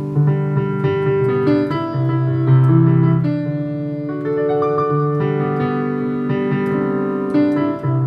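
Piano music: a slow melody over sustained chords, the notes changing about every second.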